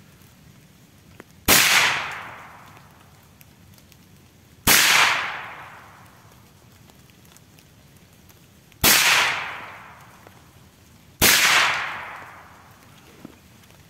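Four suppressed shots from a Saiga-410 shotgun firing supersonic rounds, a few seconds apart, each fading out over about a second.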